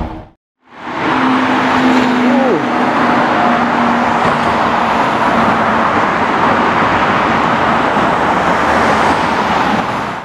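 Loud, steady engine and exhaust noise of a sports car driving off along a city street, with traffic behind it. A brief falling tone comes about two and a half seconds in.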